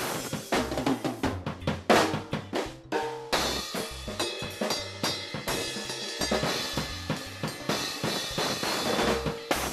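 Drum kit being played: a quick run of snare and tom hits for about three seconds, then a beat with kick drum under a steady crash of cymbals.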